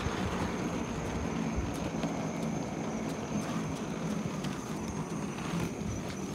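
Steady rumble of wheels rolling over rough asphalt, with scattered small clicks and rattles and a faint steady high tone above it.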